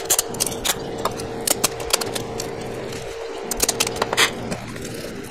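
Wide red plastic tape being pulled off its roll and pressed down onto a wooden board, giving a scattered run of short crackly rips and clicks.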